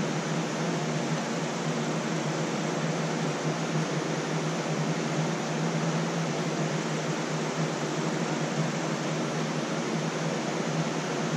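Air conditioner and fan running: a steady, even whir with a low hum beneath it.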